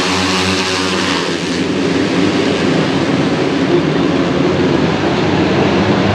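KTM RC250RBR race bikes, 250cc four-stroke single-cylinder engines, running hard as a pack. One engine's steady note stands out for about the first second, then gives way to a dense mix of several engines.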